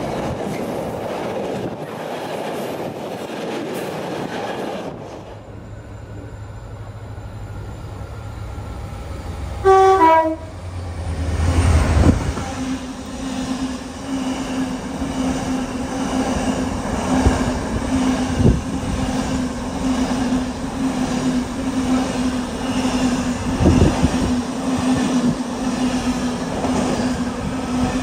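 Freight train sounds. A train is already running past at first, then after a quieter spell a locomotive gives a short horn blast about ten seconds in, its pitch stepping down. It is followed by a container freight train running past close by with a steady drone, rumble and scattered thumps of wagon wheels over the rail joints.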